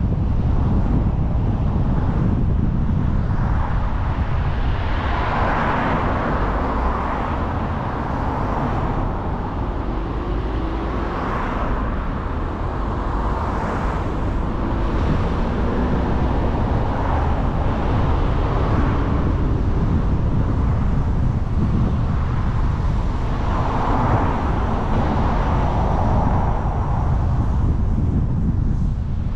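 Car driving along a city street: a steady low wind rumble on the microphone with tyre and road noise, and traffic noise swelling louder a few times, about five seconds in, around eleven seconds and again near twenty-five seconds.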